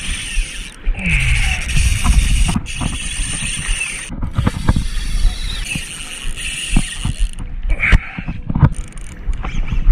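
Spinning reel's drag buzzing in short spells as a hooked jack crevalle takes line, over a low rumble of wind and water against the kayak, with scattered clicks and knocks.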